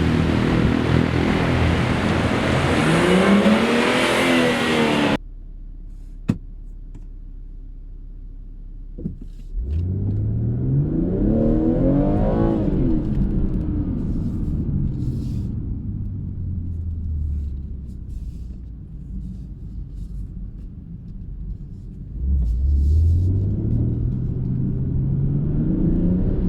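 BMW M240i's 3.0-litre turbocharged inline-six revved in blips: a rev that climbs and eases over the first five seconds and cuts off abruptly, a quieter idle with a sharp click, then a rev rising and falling around ten seconds in and another rising near the end.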